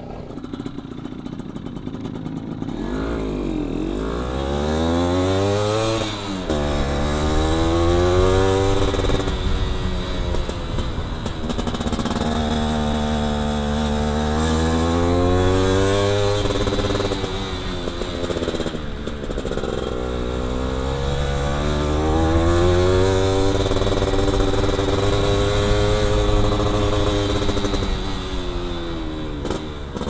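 Yamaha F1ZR's 110cc two-stroke single-cylinder engine under way, its revs climbing and dropping several times as the throttle is opened and closed, with the raspy two-stroke note.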